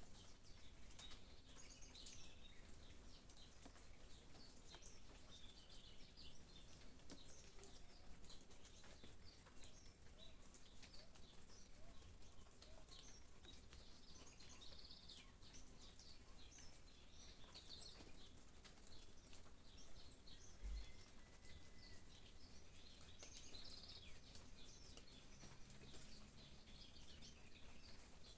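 Small birds chirping in short, very high-pitched twittering bursts every few seconds, with softer chirps in between, over faint rain patter.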